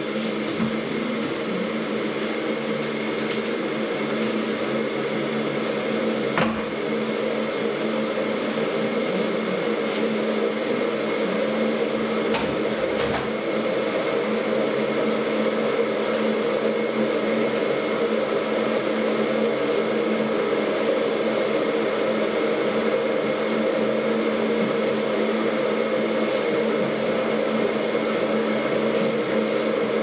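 Steady hum of a household appliance motor running, with a single sharp knock about six seconds in.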